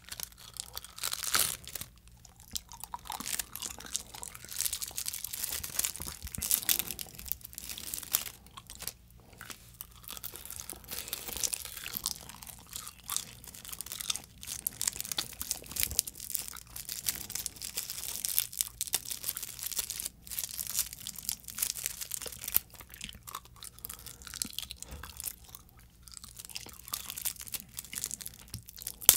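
Close-up crinkling, tearing and crunching of edible oblate starch-film tape being peeled and chewed, a dense run of irregular crisp crackles.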